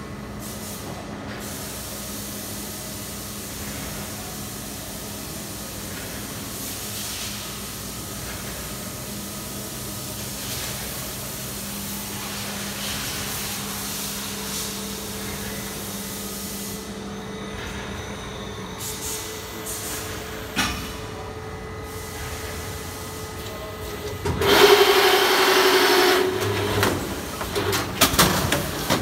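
BMtek automatic plastic-film winder running with a steady mechanical hum. About 24 seconds in comes a loud rushing noise lasting about two seconds, then a few clicks and knocks as the machine moves the finished roll.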